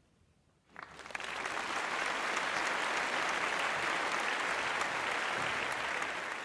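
Applause from many people clapping. It starts about a second in, builds quickly, holds steady and begins to fade near the end.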